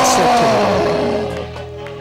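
Background church music holding a sustained chord that slowly fades, with a preacher's loud drawn-out call sliding down in pitch over the first second.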